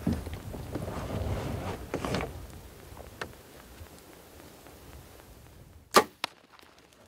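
Compound bow being shot about six seconds in: a sharp, loud crack of the string release, followed a quarter second later by a second, weaker crack. Low rustling during the first two seconds as the archer holds at full draw.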